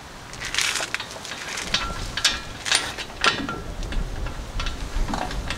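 Irregular metallic clicks and scrapes, some with a brief ring, as the top bolt of a Ford Ranger's front brake caliper is fitted and worked into place by hand.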